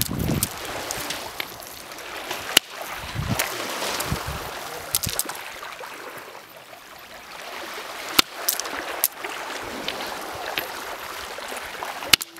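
Bare-hand karate strikes on beach stones during stone breaking: about six sharp knocks of hand on stone, a few seconds apart. Small waves wash steadily on a shingle beach underneath.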